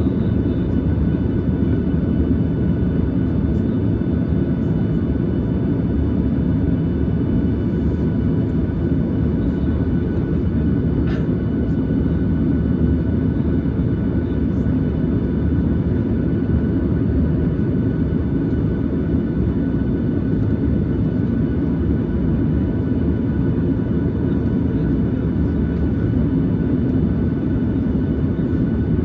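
Steady low rumble and hiss of a Boeing 737-800 cabin on the ground during de-icing, with faint steady high whines over it. A single faint click about eleven seconds in.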